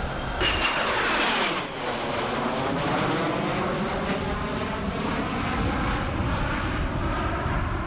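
Jet aircraft passing close in a display flypast. A sudden loud engine roar comes in about half a second in, and its whine falls sharply in pitch as the jet goes by, then settles into a steady roar.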